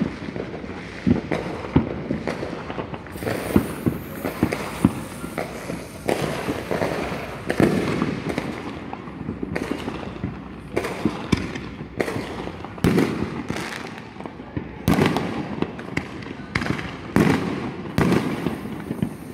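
Fireworks going off in quick, irregular succession: many sharp bangs, several a second at times, some with a short echo after them.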